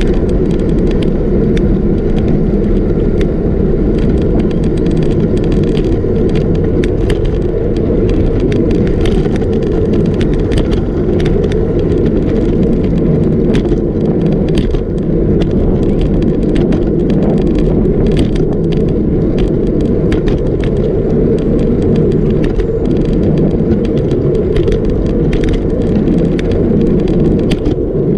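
Riding noise picked up by a camera on a moving bicycle: a steady, loud low rush of wind on the microphone and tyres rolling on asphalt, with frequent small clicks and rattles from the bike and mount.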